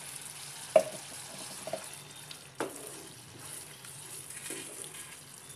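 Wet onion-yogurt masala sizzling and bubbling in a hot nonstick frying pan, a splash of water just stirred in, with a wooden spatula knocking against the pan, sharply about a second in and again a couple of seconds later.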